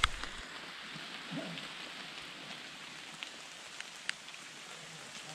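Steady rain falling on leaves and undergrowth, with scattered drops ticking. There is a single sharp click right at the start.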